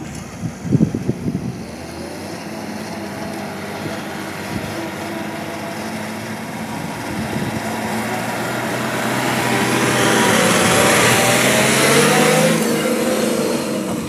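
Diesel engine of a loaded Ashok Leyland tipper lorry running and pulling away. It grows louder through the second half and rises in pitch as it accelerates near the end. A few heavy knocks come about a second in.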